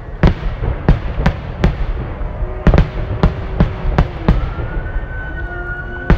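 Aerial firework shells bursting overhead: a rapid string of sharp bangs, about two a second, over a continuous low rumble. From about halfway in, a few steady held tones sound over the bangs.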